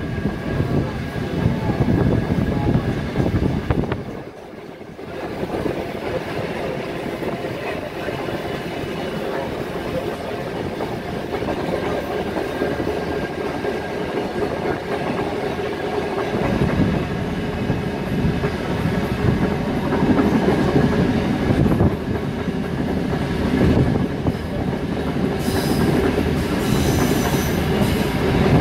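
Heritage steam train running along the track, heard from aboard: a steady rumble that briefly drops away about four seconds in and grows louder after the middle. Near the end comes a brief high-pitched squeal.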